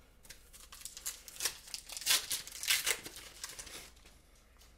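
Foil wrapper of an Upper Deck SP Hockey trading card pack being torn open and crinkled by hand: a run of crackling tears lasting about three and a half seconds, busiest in the middle.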